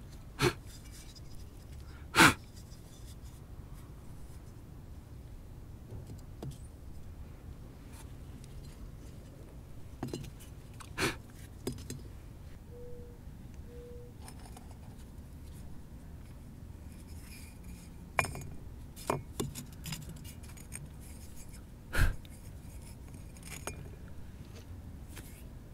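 Small fired clay pieces handled and set down on an adobe stove's clay hearth: a string of sharp clinks and knocks at uneven intervals, the loudest about two seconds in and again near the end.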